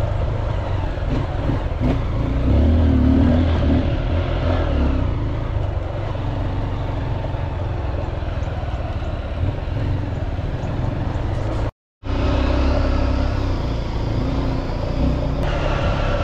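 Dirt bike engine running as it is ridden, its revs rising and falling. The sound cuts out completely for a moment about twelve seconds in, then carries on.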